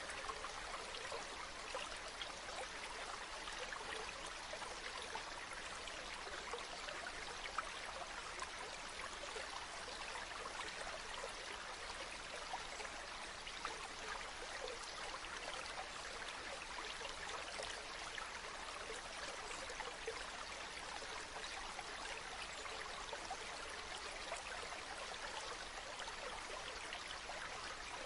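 Waterfall: a steady, even rush of water, mostly hiss with little low rumble.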